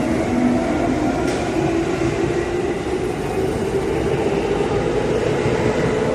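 Two coupled electric commuter train sets pulling away from a station. The traction motors whine with several tones rising slowly in pitch as the train accelerates, over a steady rumble of wheels on rail.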